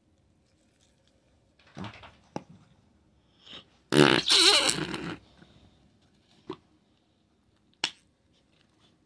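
Pink noise putty being pushed down into its plastic tub with the fingers, trapped air squeezing out with a loud, wavering fart-like noise about four seconds in that lasts over a second. Shorter squelches and pops come before and after it.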